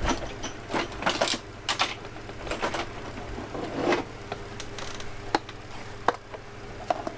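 Irregular metallic clicks and knocks of a wrench being worked on the propeller shaft nut of a Yamaha 60hp outboard's lower unit as the nut is tightened toward its 150 foot-pound torque.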